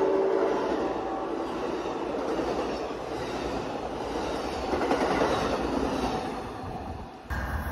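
Amtrak passenger train of bilevel Superliner cars passing at speed: a steady rushing noise of wheels on rails with clickety-clack. The tail of its horn dies away in the first moment.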